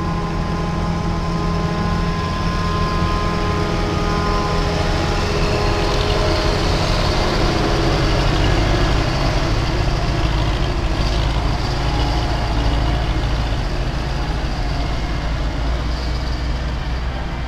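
Heavy diesel engines of a forage harvester and a wheeled tractor towing a silage trailer, running steadily as they drive past, growing louder toward the middle and easing slightly near the end.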